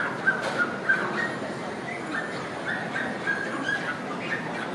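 Dogs whining and yipping in many short, high squeaks over the background murmur of a crowded hall.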